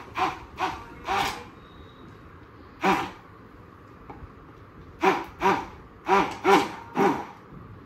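Electric hand blender run in short pulses in a jug of milk and Oreo biscuits, its motor whirring up and falling back each time; about nine brief bursts, a cluster near the start and another in the second half.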